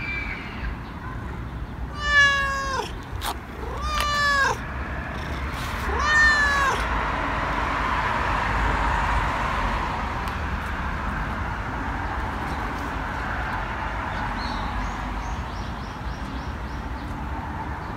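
Tabby-and-white cat meowing three times, about two seconds apart, each meow a drawn-out call that falls off in pitch at its end. Steady background noise carries on after the meows.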